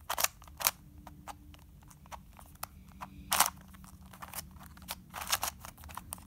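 Plastic clicks and clacks of a transparent QiYi Clover Cube twisty puzzle being turned by hand, about eight separate turns at uneven intervals, the loudest about three and a half seconds in.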